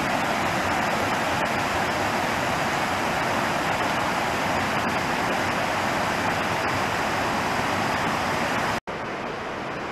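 A creek running over rocks: a steady rush of water. It breaks off for an instant near the end, then carries on a little quieter.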